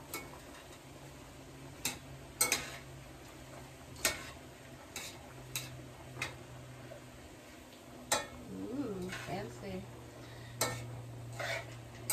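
A metal spatula stirring ground meat and frozen vegetables in a skillet, with irregular sharp scrapes and taps against the pan over a low sizzle.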